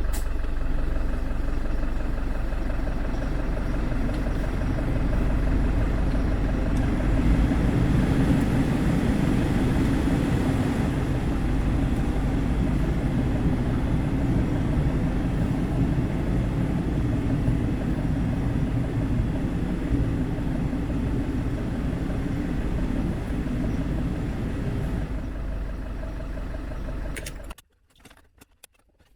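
Citroën C5's 2.2 HDi diesel engine idling steadily, cutting off suddenly near the end.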